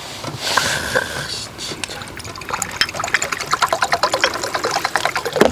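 Liquid poured from a green glass soju bottle into a small glass, glugging in quick, even pulses through the second half.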